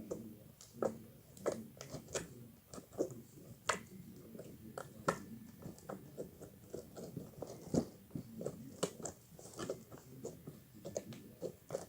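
Clicky slime being worked, giving off irregular small wet clicks and pops, several a second.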